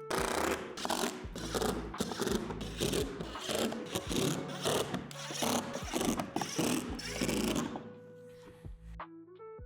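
Window hardware being screwed into a plastic shed door by hand: a repeated rasping rub, about two strokes a second, that stops about eight seconds in.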